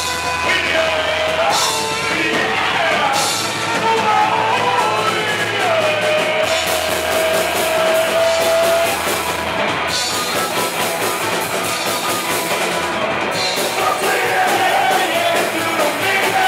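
Punk rock band playing live: electric guitars and drums under sung vocals, with one long held vocal note around the middle.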